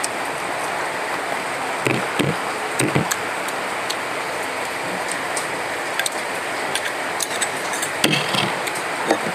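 Eating by hand: a few soft mouth smacks and clicks, and a spoon clinking in a glass bowl of curry near the end, over a steady background hiss.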